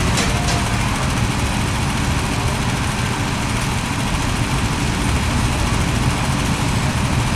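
Small go-kart engines running steadily with a low, even drone.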